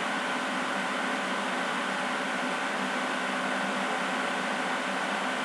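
Steady hiss with a faint hum underneath: room and recording noise, with no distinct event.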